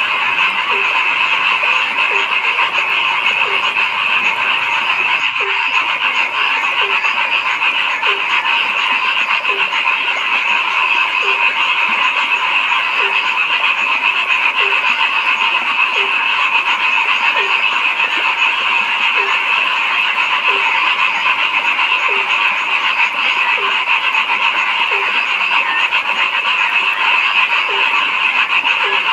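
Dense frog chorus: many frogs calling together in a steady, unbroken din, with one lower croak repeating at an even pace, a little more than once a second.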